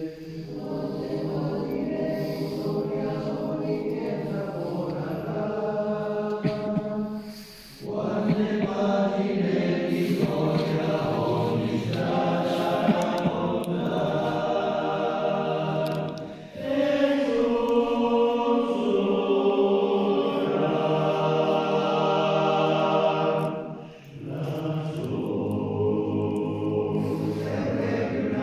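Male choir singing a cappella in long held phrases, with brief pauses for breath about a quarter, halfway and three quarters of the way through.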